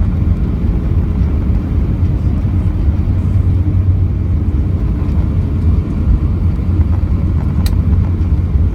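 Steady low rumble of an Airbus A321 airliner's engines and airflow heard from inside the passenger cabin, with one brief click near the end.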